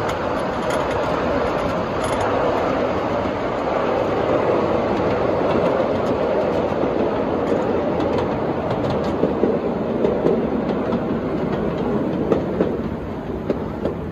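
Ridable miniature steam railway train rolling steadily along the track, its wheels running on the rails with a continuous rumble and scattered sharp clicks over rail joints.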